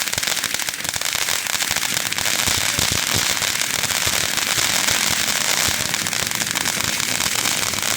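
Firework fountain burning: a steady loud spray hiss thick with dense crackling.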